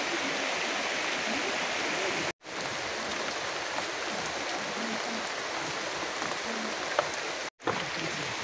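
Steady rushing water noise, cut by two brief, sudden silences about two and a half and seven and a half seconds in, with a single sharp click just before the second.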